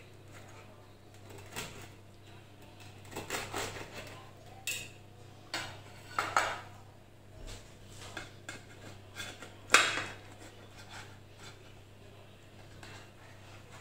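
Serrated knife and slotted metal spatula scraping and clinking against a metal baking tray as a slice of pizza is cut and lifted out. The sound comes in scattered short strokes, with the loudest clatter about ten seconds in.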